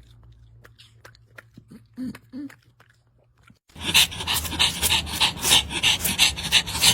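A dog panting loud and fast, starting suddenly partway through, after a few faint clicks and two short low sounds.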